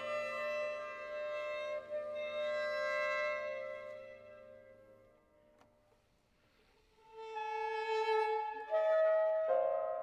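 Violin and soprano saxophone holding long sustained notes in a contemporary chamber piece. The notes fade away to near silence about five seconds in, and new held notes enter about two seconds later, shifting pitch twice near the end.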